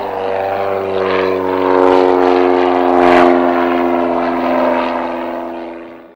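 Propeller aircraft engine running with a steady droning tone. It swells to its loudest about three seconds in, then fades away to silence near the end.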